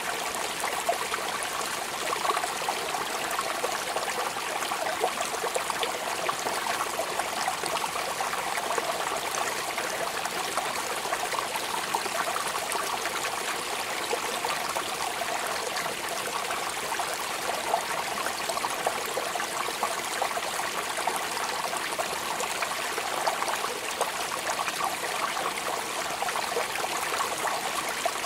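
Steady rain falling: a dense, even patter of drops that never pauses or changes.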